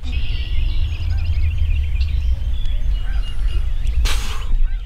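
Wind buffeting the microphone with a low, fluttering rumble, over many small birds chirping and singing in the background. A short rustling burst comes about four seconds in.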